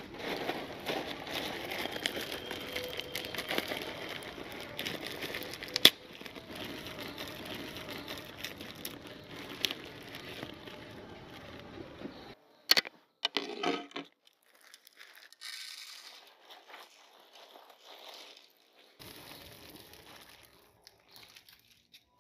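Plastic packet of puffed rice crinkling and rustling as it is handled, with sharp crackles, for about the first half. Then a few loud sharp clicks and knocks, followed by fainter, scattered rustling.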